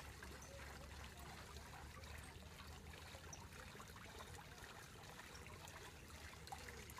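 Faint, steady trickle of water falling from a pipe into a lake.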